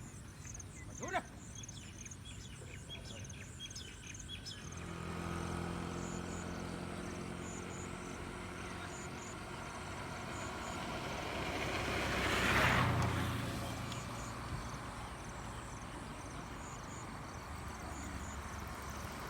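Birds chirping in quick short calls, then a low steady motor hum sets in about a quarter of the way through. A motor vehicle passes, swelling to its loudest about two-thirds of the way through and then fading.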